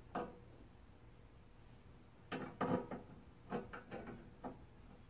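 Light clicks and metallic knocks of hands working the sheet-metal high-voltage cage cover off a 1949 Admiral television chassis: one click at the start, then a cluster of knocks about two and a half seconds in and a few more over the next two seconds.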